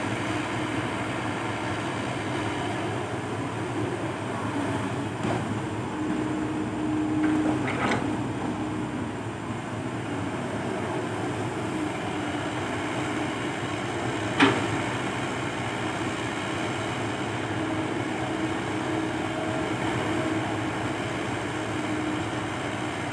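Komatsu PC120-5 hydraulic excavator's diesel engine running under load as it digs and swings, its hum swelling twice as the hydraulics work. One sharp knock about two thirds of the way through.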